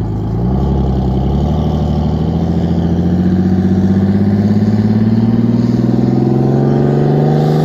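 1980 Silver Eagle bus's supercharged and turbocharged two-stroke Detroit Diesel engine pulling hard under load as it drags the empty boat trailer up the ramp and out of the water, its pitch rising steadily as the bus gains speed.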